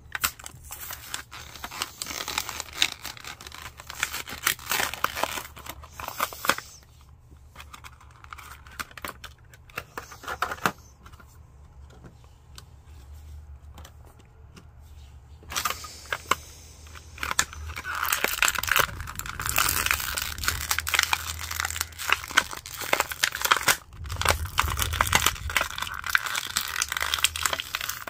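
A toy's clear plastic blister pack being torn and peeled open by hand, the thin plastic crinkling and crackling. There is a quieter stretch in the middle, and the crinkling comes back denser and louder for the last third.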